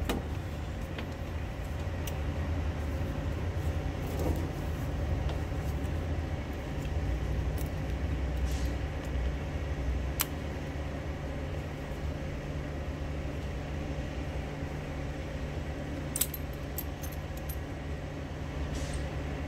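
Hand tools clicking and clinking on a semi truck's air-line fittings as the rusty connectors are worked loose, a few sharp metallic clicks over a steady low engine rumble.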